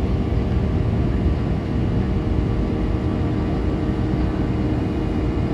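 Steady jet airliner cabin noise during the climb after takeoff: a continuous low engine and airflow rumble with a faint steady hum.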